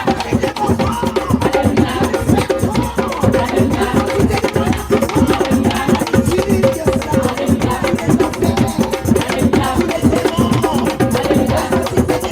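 Music with a busy, steady percussion beat.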